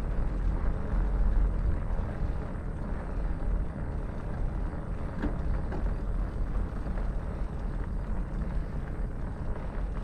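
Steady low rumble of a Trek Farley 5 fat-tire bike rolling at walking pace, its 5-inch tyres running over a cracked paved trail, with a few faint ticks.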